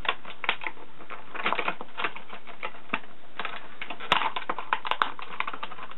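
Earbud packaging being handled and opened by hand: an irregular run of small clicks and crackles.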